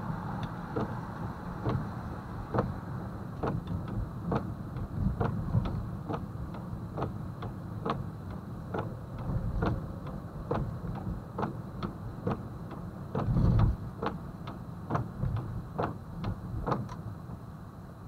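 Car turn signal clicking steadily, about three ticks a second, over the low rumble of the car's cabin rolling on wet pavement, with a brief louder rumble about two-thirds of the way through.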